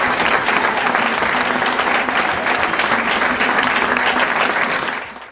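Theatre audience applauding steadily, fading out near the end.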